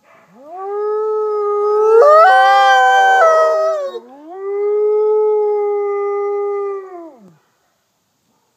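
Mexican gray wolf howling twice: each long howl rises at the start, holds a steady pitch and drops away at the end. About two seconds in, a second, higher howl overlaps the first for about a second and a half.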